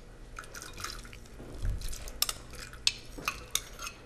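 Metal ladle clinking and scraping against a glass bowl in a run of irregular sharp clicks, as canned corn kernels are scooped out and tipped into a pot of hot broth with small splashes.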